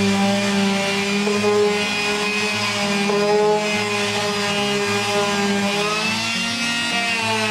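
Electric palm sander running steadily against a wooden birdhouse, sanding it smooth for painting; its motor whine wavers in pitch near the end as the pressure on the wood changes.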